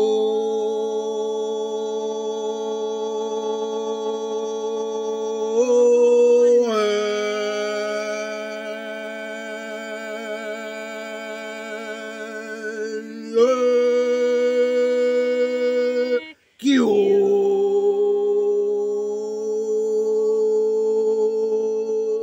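Sustained hummed vocal drone on long held notes rich in overtones, shifting pitch twice, with a slight wavering in the middle and a brief gap about three-quarters of the way through.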